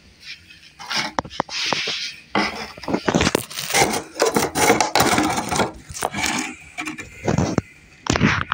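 Handling noise: rubbing, scraping and clicks of clear plastic containers and the phone being moved about close to the microphone.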